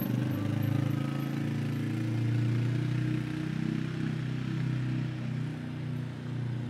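Quad bike (ATV) engine running as the quad drives across the yard, its pitch wavering slightly with the throttle and getting a little fainter near the end.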